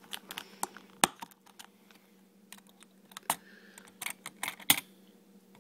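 Scattered sharp metallic clicks and taps of an LGA 1155 CPU socket's retention lever and load plate being unlatched and lifted, the loudest click near the end.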